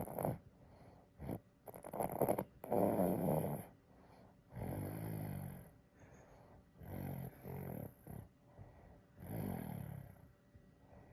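A 7-month-old baby snoring loudly in its sleep, one snore on each breath, about every two seconds.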